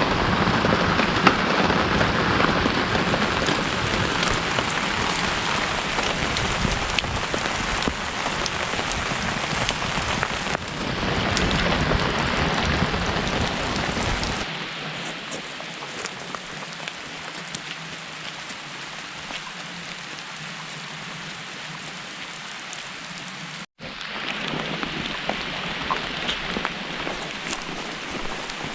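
Steady rain falling. It is louder for about the first half, then drops to a softer, lighter rain sound after a sudden change about halfway through.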